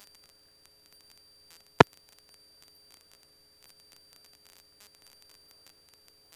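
Near-silent radio audio feed: a faint steady hum and a thin high whine, broken once by a sharp click about two seconds in.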